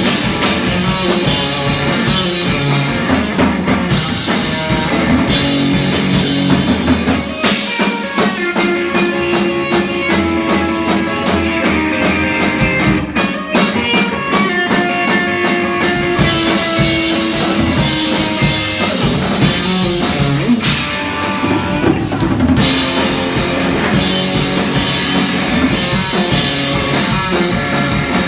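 Live rock band playing, with drum kit and guitar. In the middle the drums hit in an even, steady run of strokes, about three or four a second, before the full band texture returns.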